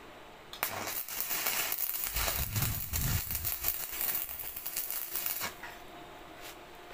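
Stick (shielded metal arc) welding on mild-steel rebar: the electrode strikes an arc about half a second in and crackles and sizzles for about five seconds, then stops.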